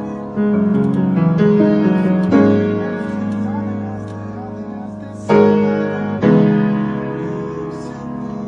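Piano music: slow, sustained chords, each struck and left to ring, with fresh chords entering about every one to two seconds and the strongest attacks about five and six seconds in.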